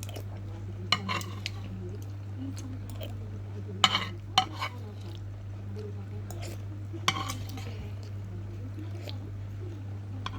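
A spoon knocking against a bowl a few times while noodle broth is eaten, with the clearest strokes about one, four and seven seconds in, over a steady low hum.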